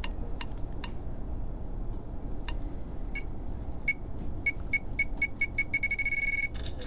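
John's Phone keypad beeping as keys are pressed: short pitched beeps, a few spread out at first, then quickening to about three a second, with a longer held beep near the end.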